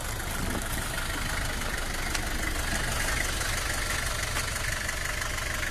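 Isuzu Trooper's engine idling steadily.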